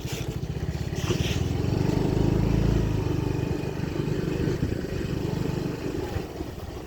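Scooter engine running as it is ridden along a rough road, heard from the rider's seat. It swells louder for a second or two a little after the start, then eases back.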